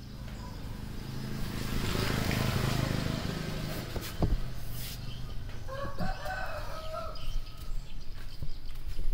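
A rooster crowing once in the background, a drawn-out call about six seconds in. Before it, a low rumble swells and fades, and there is a single sharp knock.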